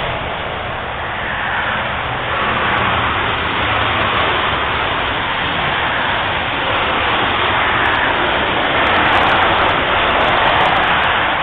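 Motorway traffic passing at speed: a continuous tyre roar and hiss that swells as vehicles go by and eases between them. The road is wet, and the tyres throw spray.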